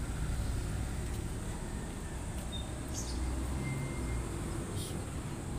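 Outdoor background noise: a steady low rumble with a faint hiss over it, and a couple of faint, brief high chirps.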